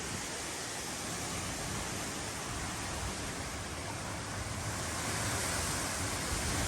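Strong wind blowing, a steady rushing noise that grows a little louder near the end.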